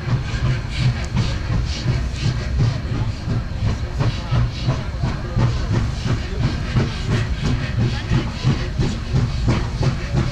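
Steam locomotive working along the line, its exhaust chuffing in a steady, quick rhythm with a hiss of steam.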